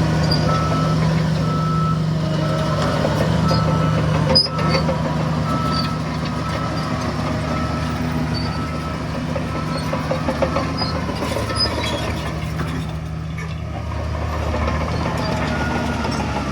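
Heavy diesel earthmoving equipment running, with a reversing alarm beeping about once a second. A single sharp clank sounds about four seconds in.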